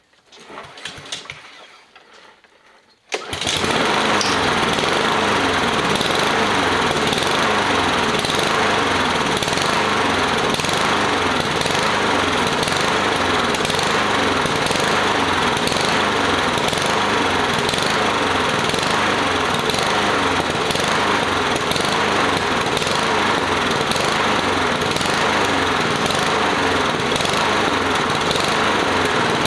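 Walk-behind petrol lawn mower's four-stroke engine comes in suddenly about three seconds in and then runs steadily. It has just been serviced with fresh oil, fresh petrol and a new air filter.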